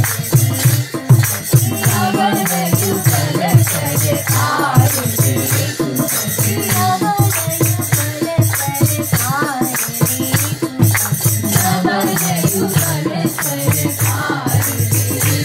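Hindu devotional kirtan: voices singing a chant over a steady beat of jingling hand percussion.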